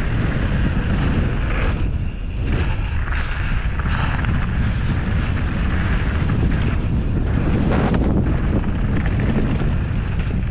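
Wind buffeting the microphone of a camera on a mountain bike speeding downhill, a steady heavy rumble, mixed with the tyres rolling over dirt and gravel.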